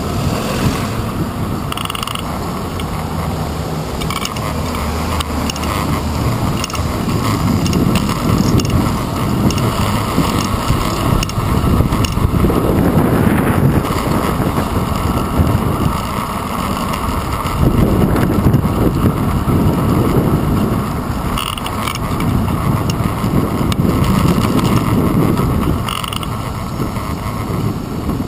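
Bicycle ride noise heard through a handlebar-mounted GoPro Hero 2: a steady rattling clatter of the camera and bike shaking over the pavement, mixed with wind and city traffic, swelling and easing in stretches.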